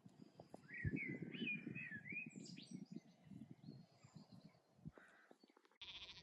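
A songbird singing a warbling phrase for about two seconds, with a few higher chirps after it. Low rustling and bumps run underneath and are louder than the song.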